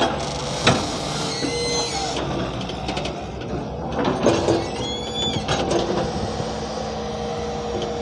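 Hyundai 170 excavator at work: a steady engine drone with a sharp clank a little under a second in and short high squeals around two seconds and again around five seconds.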